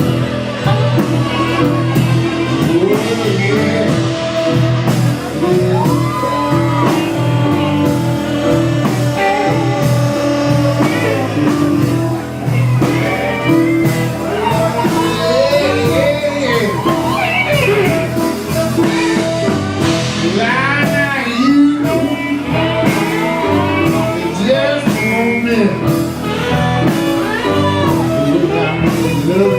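A loud song playing: a singing voice over guitar and a steady beat.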